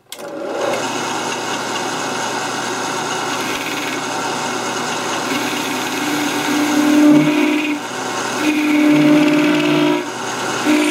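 Metal lathe starting up and running, turning the sleeved rifle barrel while the tool bit cuts a tapered profile on its end. A steady machine whine throughout, with a stronger humming tone coming in twice in the second half as the cut bites.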